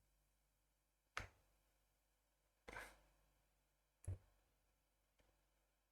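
Near silence with three faint, short clicks: one about a second in, a slightly longer one near three seconds, and one about four seconds in.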